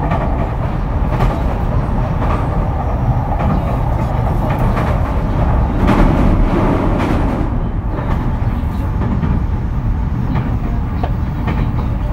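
Running noise heard inside a JR East E231-series commuter train's motor car: a steady rumble of wheels on rail with occasional sharp clacks. About six seconds in, the rumble swells louder for a second or so.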